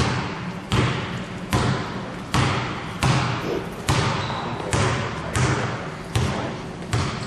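A basketball being dribbled on a gym floor, a steady bounce a little more often than once a second, each bounce echoing around the hall.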